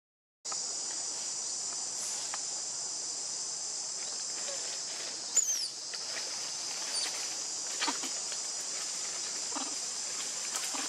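Steady, high-pitched drone of a forest insect chorus. A short high squeal falling in pitch cuts in about halfway through, with a few faint clicks and rustles around it.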